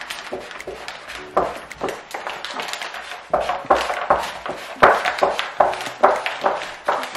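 Plastic squeegee scraping over self-adhesive vinyl film on a worktop while the backing paper is peeled away, an irregular run of sharp scrapes and crackles. The strokes come louder and closer together from about halfway through.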